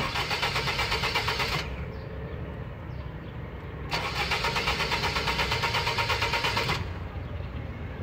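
Suzuki car's starter motor cranking the engine in two bursts of rapid, even churning, the first brief and the second about three seconds long, with a pause between. The engine does not catch: a hard start, with the car cranking but not starting.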